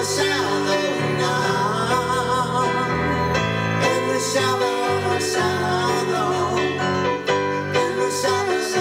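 A man singing into a microphone while playing chords on a digital stage piano, a live piano-bar song performance.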